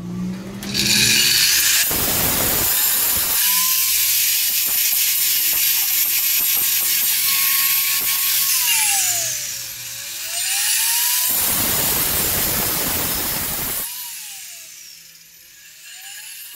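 A corded electric power tool is abrading the bare steel floor of a van: a loud grinding hiss over the motor's whine. The whine sags in pitch and recovers. The grinding stops about fourteen seconds in, leaving the motor's whine, which dips and rises once more.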